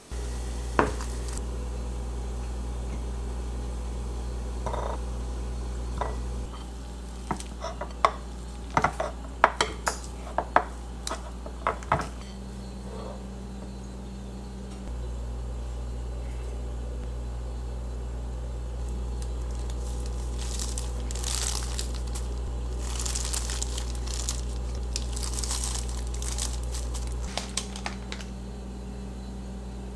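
Food-prep handling sounds over a steady low hum. A quick run of sharp clinks comes from a spoon knocking on a plate in the first half. Later comes a stretch of rustling from a plastic cheese bag as toppings are scattered onto the wrap.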